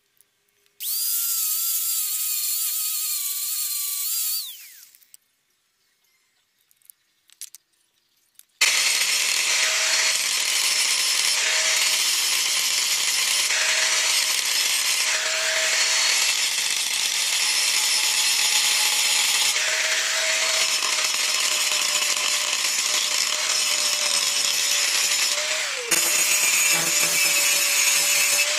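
An electric tool motor spins up about a second in, runs for a few seconds and winds down, followed by a few knocks. From about nine seconds in, a handheld angle grinder runs continuously, grinding wood, its pitch dipping briefly each time the disc is pressed into the wood.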